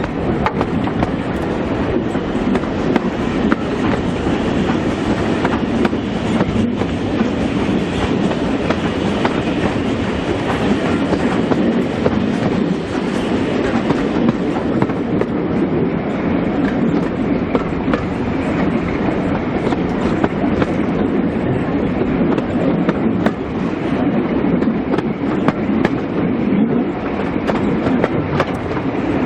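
Steam-hauled passenger train running, heard from on board: a steady rumble with the wheels clicking over the rail joints.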